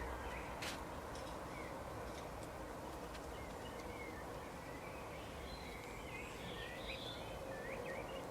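Small birds chirping in short, scattered calls over steady background noise with a faint hum. The chirps come more often in the second half.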